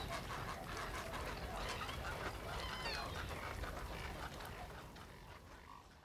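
A colony of nesting egrets and other wading birds, many calling at once, with one short high falling call about halfway in. The sound fades out near the end.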